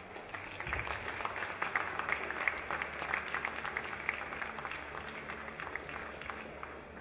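Crowd applauding: dense clapping that dies away near the end.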